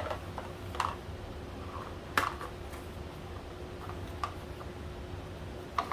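Keycap puller rattling loose inside a small box as the box is handled: a few separate sharp clicks, the loudest about two seconds in.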